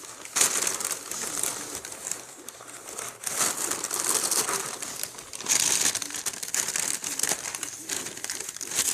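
Plastic trading-card sleeves crinkling and rustling as they are handled, louder in several stretches.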